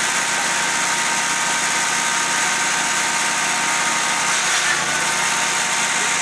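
Steady engine noise with a heavy hiss of road or wind noise, as from a vehicle being driven.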